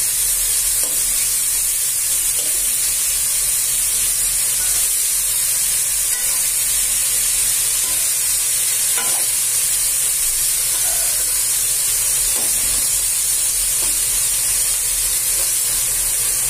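Bean sprouts and beef sizzling steadily in a hot metal wok while a spatula stirs and turns them, with occasional faint scrapes of the spatula against the pan.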